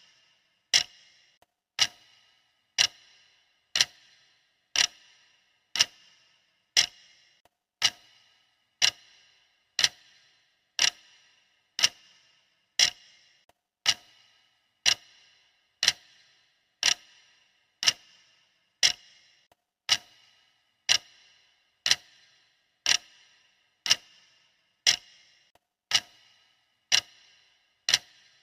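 Clock ticking steadily, about one sharp tick a second, each tick with a brief ringing tail.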